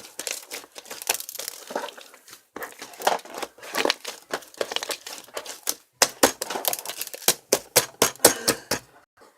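Crinkling and crumpling of a handled material, with a run of sharp, quick clicks from about six seconds in.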